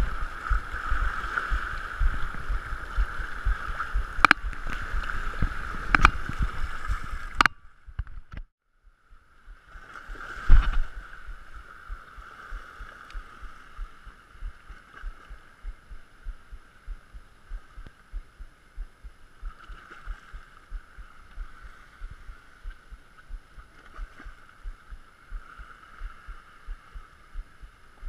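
Sea surf washing and foaming around rocks and the wader's legs. About ten seconds in there is a single thump, and after it a spinning reel is cranked, ticking about twice a second over quieter lapping water.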